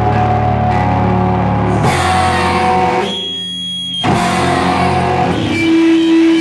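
A live slowcore/noise-rock band playing sustained electric guitar chords over a heavy low end. About halfway through, the low end drops out for roughly a second, then the chords come back in.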